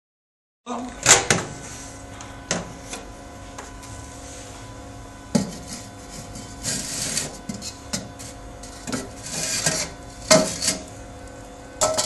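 Metal tongs clicking, knocking and scraping against the firebrick kiln inside a microwave oven: sharp knocks about a second in and again near the end, with two short stretches of scraping in between, over a steady hum.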